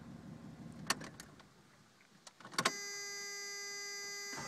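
Low idle rumble from a Toyota 3.0 V6 dies away about a second and a half in, followed by a few sharp clicks. Then a steady electronic warning buzzer starts and keeps sounding.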